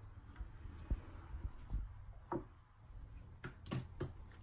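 A few faint, sharp clicks and taps, with a quick cluster near the end, from sliced onions being laid by hand over marinated chicken in an enamel roasting pan.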